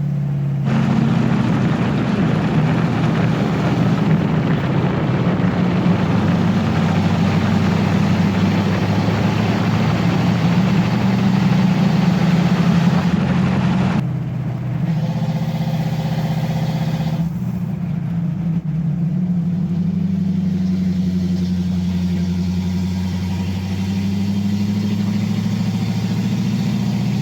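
1965 Ford Mustang's engine running as the car drives. It pulls louder for the first half, eases off suddenly about halfway, then runs steadier and quieter.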